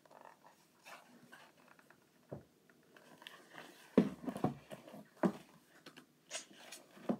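A children's picture book being handled and its pages turned: soft paper rustles and light taps, with a few louder ones from about four seconds in.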